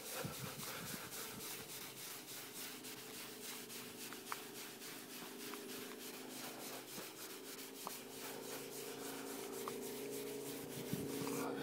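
A cloth pad rubbing over a hazy plastic headlight lens in quick, even back-and-forth strokes, polishing away the haze.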